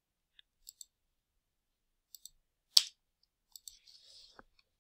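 Quiet clicks of a computer mouse, several coming in quick pairs like double-clicks, with one sharper click a little under three seconds in.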